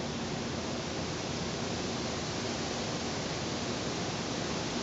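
Steady, even hiss-like background noise with no distinct events.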